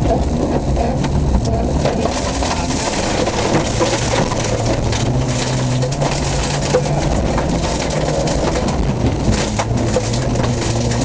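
Off-road race car's engine running hard, heard from inside the cabin, its pitch shifting with throttle and gears, over a continuous clatter and knocking of the body and tyres on a rough dirt track.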